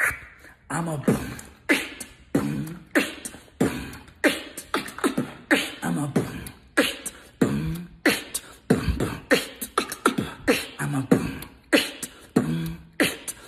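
Human beatboxing: a steady, fast beat of mouth-made kick and snare sounds, with short hummed low notes woven between the hits.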